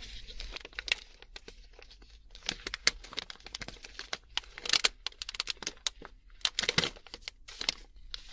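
Crinkly plastic snack pouch being handled and the seal between its nut and dried-fruit compartments torn open, in irregular bursts of crackling and rustling.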